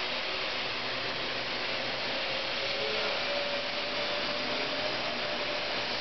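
Parrot quadcopter hovering, its four electric motors and propellers making a steady whirring hum with a high tone that wavers slightly.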